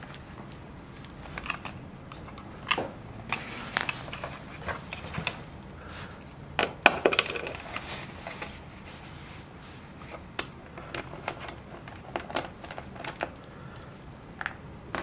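Torx screwdriver clicking and scraping as it backs screws out of a Servorahmen IDS servo frame in a model glider wing, with small parts being handled. The clicks are scattered, with a louder cluster about seven seconds in.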